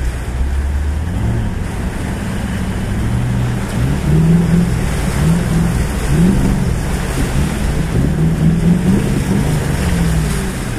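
Toyota LandCruiser 200 series V8 engine heard from inside the cabin while crawling over a rough, muddy bush track in low range. The revs repeatedly rise and fall over a steady rumble of tyre and road noise.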